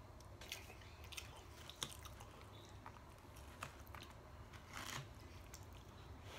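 Faint eating sounds: a person chewing, with a metal fork clicking a few times in a foam takeout container and scraping once, about five seconds in.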